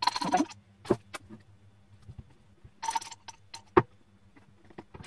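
Metal utensil scraping and clinking in a small glass jar of pesto as it is scooped out. There are two short scraping bursts, a few separate sharp clicks, and one loud click about four seconds in.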